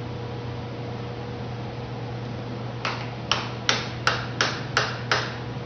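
Seven sharp metallic taps, about three a second, starting about halfway through, each with a short ring: the cam phaser locking block being tapped into place between the phaser gears of a Pentastar V6.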